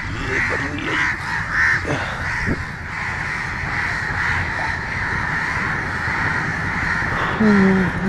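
Crows cawing, harsh calls coming several times in the first few seconds, over a constant background din and a low rumble.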